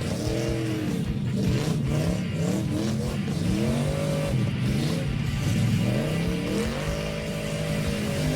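Car engine revving repeatedly, its pitch sweeping up and falling back about once a second, then holding steadier near the end.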